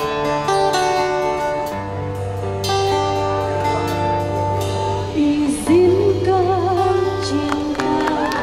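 Live street band playing a song's intro with sustained chords over a bass line. About five seconds in, a woman starts singing into the microphone with a wavering vibrato.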